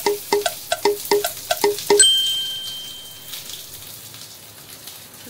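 Onion and garlic sizzling in hot mustard oil in an aluminium kadai, the sizzle fading. About eight quick metallic clinks of a utensil against the pan come in the first two seconds, and the last one rings for about a second.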